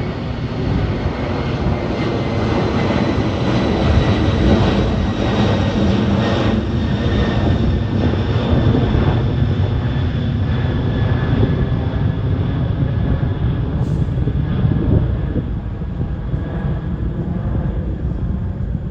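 Boeing 747-400F freighter's four jet engines running loud and steady as the aircraft passes close by, with a faint whine slowly dropping in pitch.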